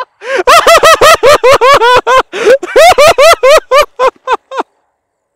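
A man laughing loudly and heartily, a quick run of "ha-ha" bursts about five a second, tailing off after about four and a half seconds.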